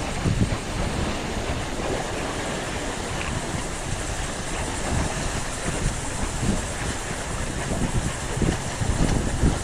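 Wind blowing across an action camera's microphone: a steady rushing noise with uneven low buffeting gusts, over the wash of sea waves.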